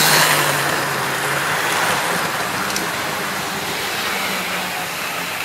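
Hornby Class 37 model locomotive running at full power around a model railway track: a steady electric motor hum with wheels rattling on the rails, loudest near the start as it passes close, then easing a little.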